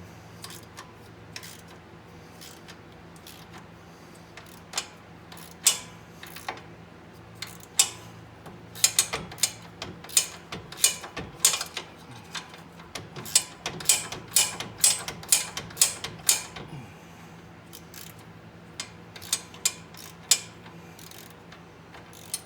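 Hand ratchet with a 14 mm socket on an extension clicking in irregular runs of strokes as a rear-differential bolt is worked loose; the busiest run of clicks comes around the middle.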